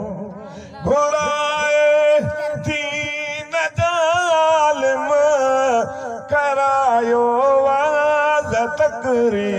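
A solo male voice singing a Sindhi devotional song into a microphone, coming in about a second in and holding long notes with wavering ornamented turns of pitch.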